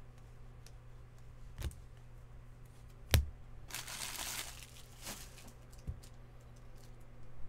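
A sharp knock on the tabletop, then about a second of crinkling from a foil trading-card pack wrapper, with a few lighter clicks as cards are handled.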